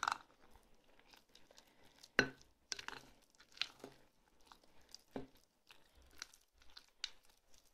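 A utensil stirring a thick casserole batter in a glass bowl: faint, irregular clicks and scrapes against the glass, the loudest right at the start and about two seconds in.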